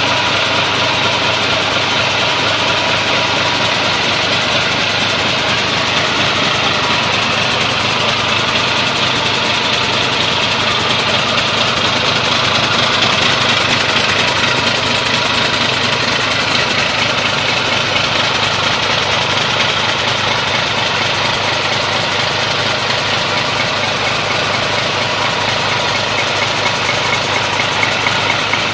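2005 Mack AI EGR diesel engine, an inline six, running steadily at idle on a test stand during a test run.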